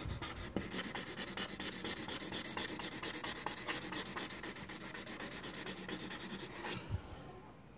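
Sharpie King Size marker's broad felt tip scrubbing rapidly back and forth on paper, filling in a solid black area with an even scratchy rubbing. The rubbing stops with a soft thump near the end.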